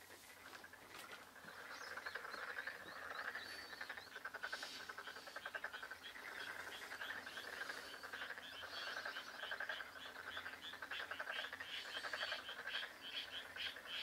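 A chorus of many frogs calling from a rice paddy: a dense, rapid rattling of overlapping croaks. From about five seconds in, a higher call repeats steadily, about three or four times a second.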